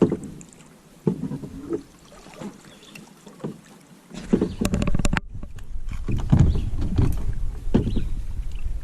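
Water splashing and knocks on a kayak hull as a magnet-fishing find is handled over the side. A low wind rumble on the microphone sets in about halfway through.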